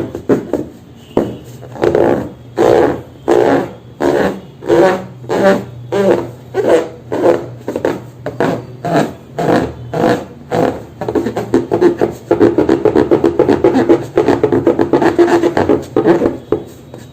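Rubber balloon buzzing as air is forced through its stretched neck: regular pulses about twice a second, then about two-thirds of the way in a continuous rapid flutter.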